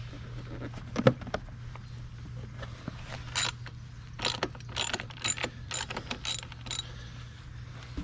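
Wrench on a motorcycle's stuck rear axle nut: one sharp metallic crack about a second in, then a run of about ten metallic ratchet clicks at an uneven pace. It is the sound of the seized axle nut being broken free and the wrench worked.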